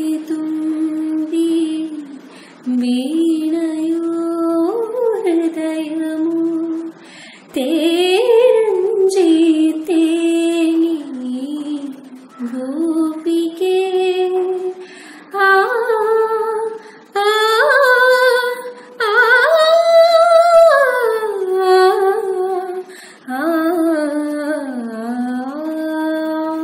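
A woman singing solo and unaccompanied, in long phrases broken by short breathing pauses, with wavering, ornamented held notes.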